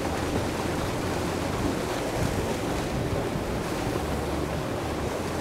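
Steady rush of water flowing through a dam spillway, with a low rumble of wind on the microphone.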